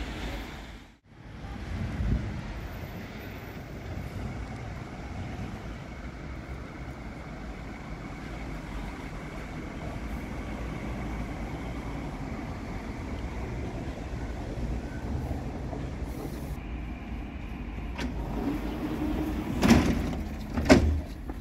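Cologne light-rail (Stadtbahn) train running into the station and stopping at the platform, a steady low rumble. Near the end come two short, loud sounds about a second apart.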